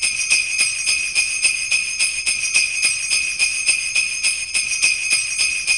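Jingle bells shaken in an even rhythm, about three or four shakes a second, with a bright ringing jingle.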